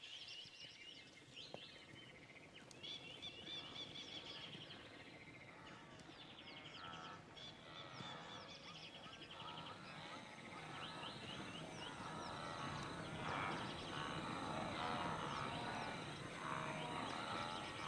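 Wild birds calling: many overlapping chirps and quick trills, growing busier and a little louder in the second half, with lower calls mixed in.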